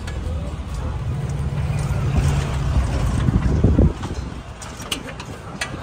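A motor vehicle's engine running close by: a low rumble that grows louder and then drops off suddenly about four seconds in, with a couple of short clicks.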